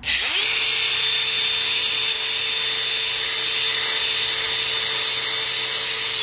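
Angle grinder with a flap disc winding up to speed in the first half second, then grinding steel steadily: a high, even motor whine over the rasp of the abrasive on the hydraulic cylinder tube, as the surface is ground bare for a welder's ground clamp.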